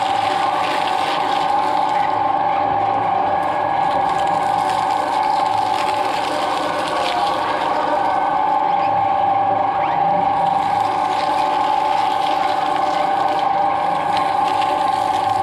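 Twin-shaft shredder running with a steady motor and gearbox whine while its toothed cutter discs crunch and crack through coconut shell halves, the cracking thickest in the first few seconds and again near the end.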